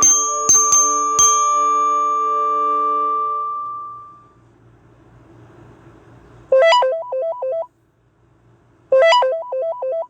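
Nokia E5 ringtones played on a Samsung Galaxy A51. The last strikes of a bell-like chime tone ring out and fade away over about four seconds. Then the next ringtone starts: a short phrase of quick alternating high and low notes, played twice about two and a half seconds apart.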